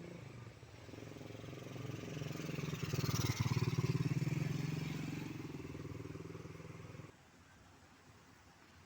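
A motor engine running with a steady drone, swelling to its loudest about three to four seconds in, then fading and cutting off abruptly about seven seconds in.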